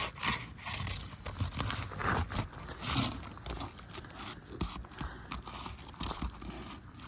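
A pry bar working under Tamko asphalt shingles, breaking their sealant strips to unseal them: irregular short scrapes and knocks.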